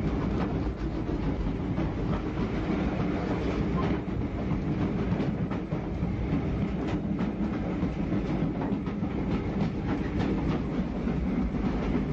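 Steam-hauled train running, headed by a pair of ex-LNWR 7F 0-8-0 locomotives: a steady, dense rumble with a continual run of irregular knocks and clatter from the train.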